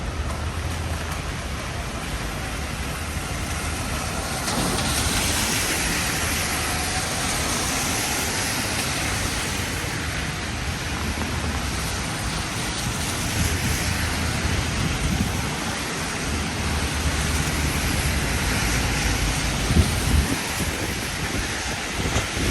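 Heavy rain falling on a city street, a steady hiss that grows louder about four seconds in, with the low rumble of passing traffic underneath.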